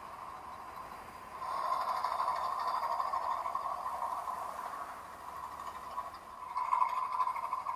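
A steady hissing, rushing noise that grows louder about a second and a half in, eases off, and swells again near the end.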